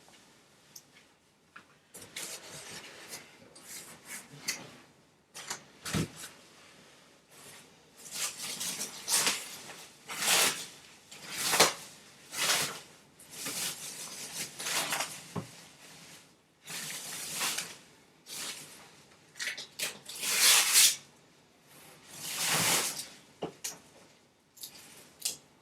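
Packaging being handled while unpacking a flat-screen TV: repeated rustling and scraping swishes of cardboard, plastic and foam, with a few short knocks.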